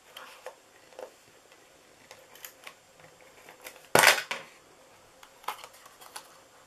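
Small clicks and rustles of a Stampin' Seal Plus tape runner laying adhesive and of cardstock being folded and pressed into a box, with one sharp knock about four seconds in.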